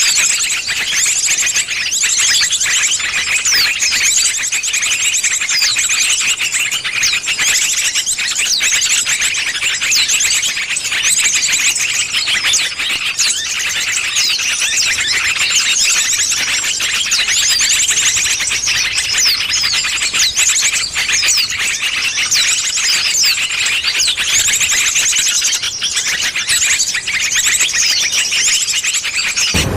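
Bird-luring call recording: a dense, continuous chatter of high-pitched chirps and rapid trills from many small birds at once.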